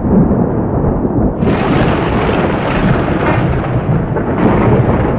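Loud rolling thunder, a continuous rumble that turns brighter and harsher about a second and a half in.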